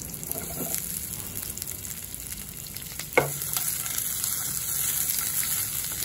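Onion and green capsicum pieces sizzling in hot oil in a nonstick frying pan while the pan is shaken over a gas flame. A single sharp knock comes about three seconds in, and the sizzle is a little louder after it.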